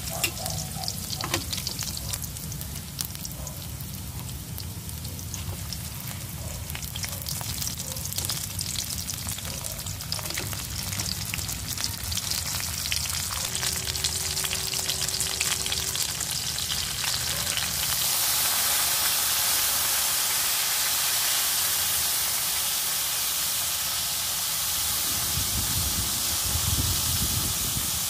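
Hot oil sizzling and crackling in a frying pan as sliced garlic and onion are stirred in it, then under pieces of fried tilapia. About two-thirds of the way through, the crackle gives way to a steadier, louder hiss.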